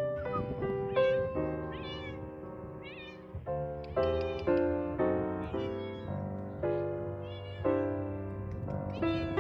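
A stray tabby tomcat meowing again and again, each meow a short call that rises and falls in pitch, over steady background piano music. The feeder puts the cat's loud meowing down to hunger and to his being in heat.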